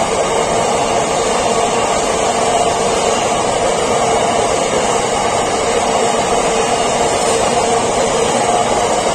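Empty flat wagons of a freight train rolling past at close range: a steady, loud rolling rush of wheels on rails with a faint steady hum.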